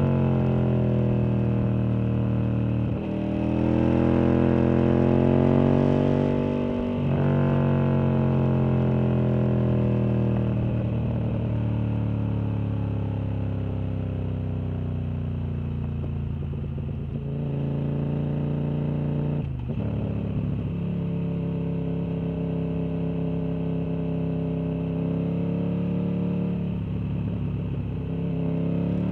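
Sport motorcycle engine heard while riding, its note falling slowly as the revs drop, with two brief breaks in the sound in the first seven seconds and another about two-thirds of the way through.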